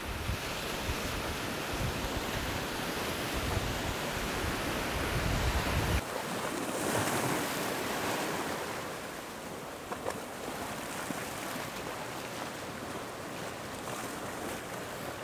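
Ocean surf washing onto a beach with wind buffeting the microphone in low rumbling gusts; the wind rumble stops abruptly about six seconds in, leaving a softer wash of small waves.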